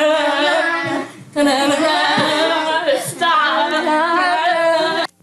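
Girls singing a wordless "da-na-na" theme tune together, in two phrases with a short break about a second in. The sound cuts off abruptly near the end as the recording stops.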